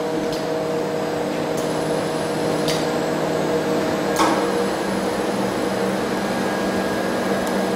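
Steady electric machine hum, typical of a chocolate tempering machine running. A few light metallic clicks and taps come with it, the sharpest about four seconds in, as a metal ladle scoops out chocolate.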